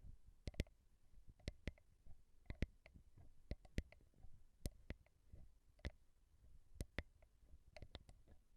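Slow ASMR tapping on a microphone: sharp taps with a soft low thud, about one or two a second and often in pairs, over a quiet background.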